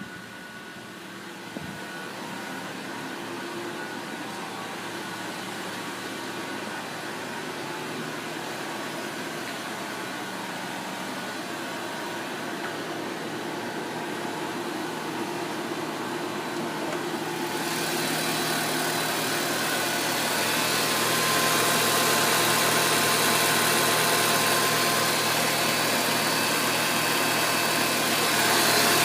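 Lexus IS300h air conditioning running with a steady whir and several steady tones, recorded as an abnormal AC noise. It grows gradually louder, with a sharp rise in rushing hiss about 17 seconds in and another step up near the end.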